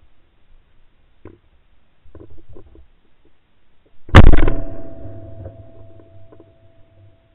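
A single shot from a Beretta 687 over-under shotgun, fired about four seconds in. The blast is very loud and sudden, and it dies away over about two seconds.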